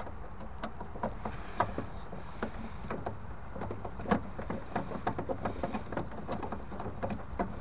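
Screwdriver undoing the bottom screw of a boiler diverter valve: a run of small, irregular clicks and taps as the tip works the screw and knocks against the fittings, one louder knock about four seconds in.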